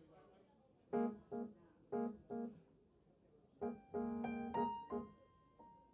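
Piano introduction to a slow song: soft chords struck in pairs, then a rising run of notes about three and a half seconds in that ends on a held high note.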